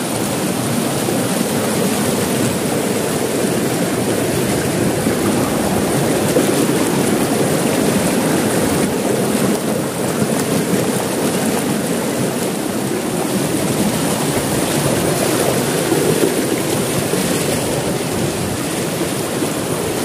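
Waterfall and stream water rushing steadily over rock.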